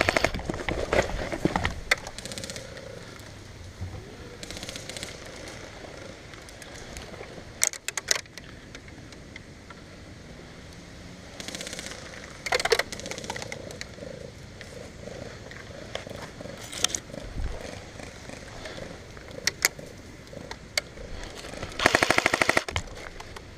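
Airsoft electric rifle firing short full-auto bursts of rapid snapping shots, several times with pauses between; the longest burst comes near the end. Scattered single clicks and low rustling fill the gaps.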